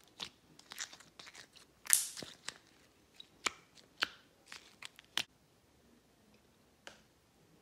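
Thick green shampoo slime in a plastic cup being poked and pressed with fingers: a run of short sticky clicks and pops, the loudest about two seconds in, thinning out after about five seconds.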